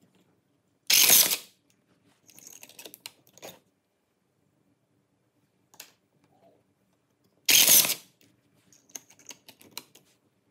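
MAX RB-395 battery rebar tying tool, running with its housing off, going through two short tying cycles about six and a half seconds apart. Each is a brief, loud burst of motor and gear whir, followed by a run of light mechanical clicks.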